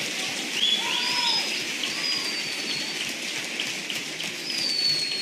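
Lecture-hall audience applauding, a dense steady clatter of many hands, with a few whistles and a whoop on top.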